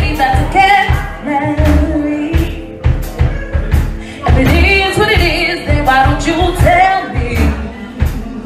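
A woman singing into a handheld microphone over a backing track with a steady beat.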